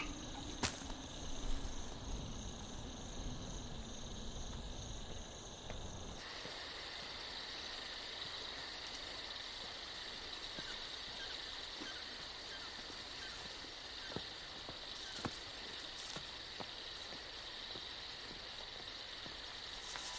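Crickets chirping steadily and faintly. About six seconds in, the sound changes abruptly to a denser insect chorus with a fast, evenly pulsing trill.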